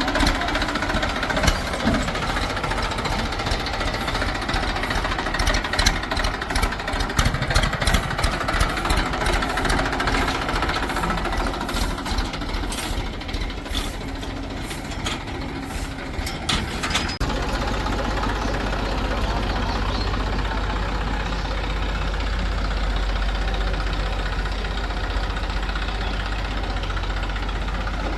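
Diesel engines of a backhoe loader and farm tractors running, with rapid clattering and knocking over the engine noise. About two-thirds of the way through, the sound changes abruptly to a steadier low engine running.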